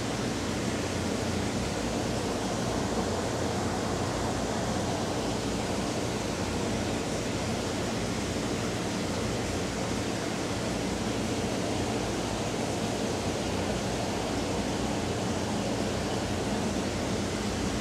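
Steady, even hiss with a low hum underneath: unchanging indoor room noise with nothing else happening.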